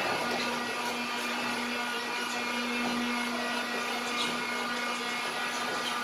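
Steady machine hum with a constant low tone running under an even wash of noise, without pauses.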